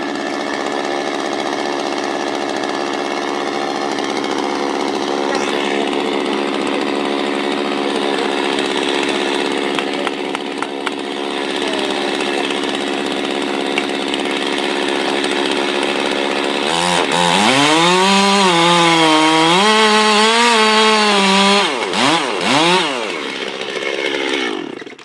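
Chainsaw running steadily at high speed. About two-thirds through, its pitch drops and wavers as it loads up in a cut. Two short revs follow, and then it fades out near the end.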